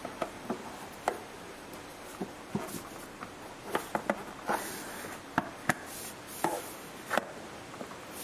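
Irregular sharp clicks and knocks, a dozen or so, as the plastic engine cover is handled and pressed back onto its mounts over the engine.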